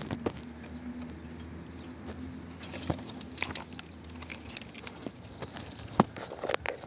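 Dry grass, twigs and leaf litter rustling and crackling as a hand rummages through them, in scattered small clicks that grow busier in the second half, with one sharp snap about six seconds in.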